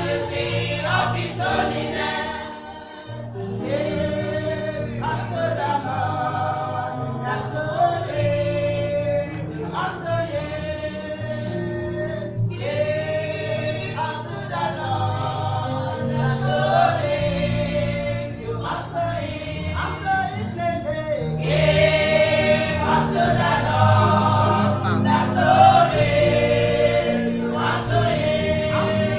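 Choir singing a gospel song in phrases a couple of seconds long, over a steady low accompaniment.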